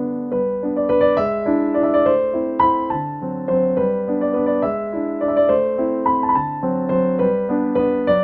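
Background music: a gentle piano or electric-piano melody over held chords, notes changing about every half second.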